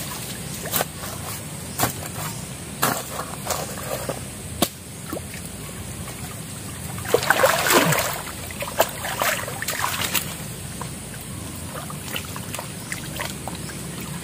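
Muddy stream water sloshing and splashing as hands scoop and pack mud to dam the flow, with scattered sharp knocks in the first few seconds and a louder burst of splashing about halfway through.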